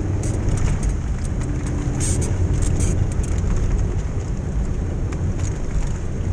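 Vehicle engine and tyre noise from inside the cabin while driving over a rough dirt track: a steady low drone with scattered rattles and clicks.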